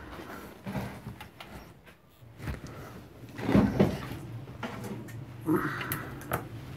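Handling noise from a circuit board and a metal monitor chassis being turned over and moved about on a table: scattered knocks, clicks and scrapes, busiest about halfway through.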